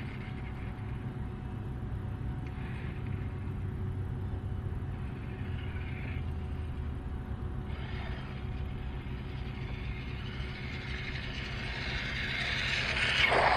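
Tarmo4 3D-printed RC car with a brushless motor, its high whine faint and coming and going, then building as it approaches. It is loudest as it passes close near the end, with a quick drop in pitch. A steady low rumble lies underneath.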